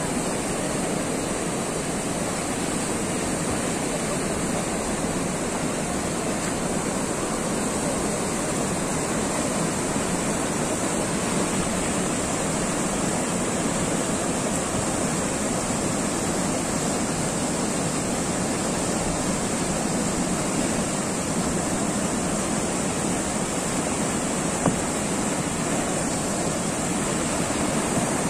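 Whitewater rushing steadily through the rapids of an artificial slalom kayak course, a constant loud churning of foaming water. One brief click near the end.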